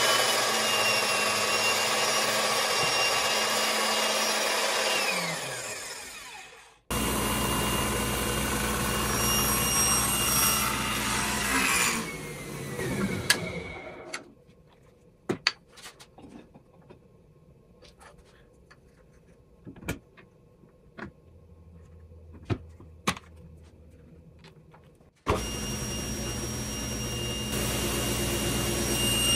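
A drill press runs a bit into a metal jig clamped in a vise, steady and then winding down with a falling whine about six seconds in. After a cut comes a second run of machine noise that also tails off, then several seconds of quiet with scattered clicks and knocks of handling. Near the end a table saw starts abruptly and runs steadily while a thin strip of wood is fed along its rip fence.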